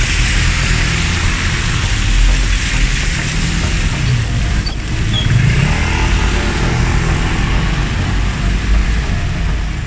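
Road traffic on a rain-soaked city street: vehicle engines rumbling and tyres hissing through the wet, with a brief high squeal near the middle.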